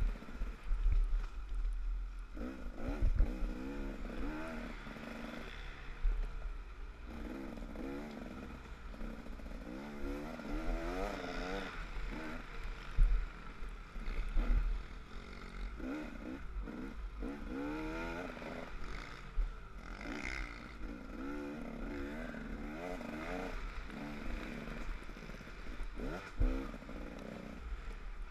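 Off-road race vehicle's engine revving up and falling back over and over as it is ridden hard along a rough trail, with a steady low rumble of wind on a helmet camera. Loud knocks and clatter from bumps come about three seconds in, near the middle and near the end.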